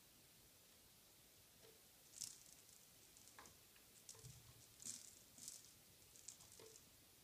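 Faint, soft scratching and rustling from a cat's paws and claws on a carpeted cat tree as it paws at a toy, in about five short bursts starting about two seconds in.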